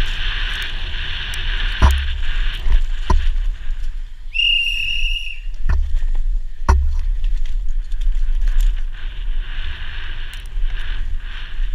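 Downhill mountain bike on a forest trail heard from a helmet camera: a steady rush of wind and tyre noise with several hard knocks from bumps. About four seconds in, the rush drops as the bike slows and a high, steady brake squeal sounds for just over a second.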